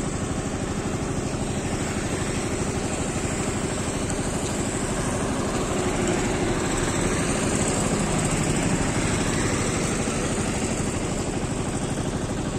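An engine running steadily, with a fast, even pulse and a thin high whine over it.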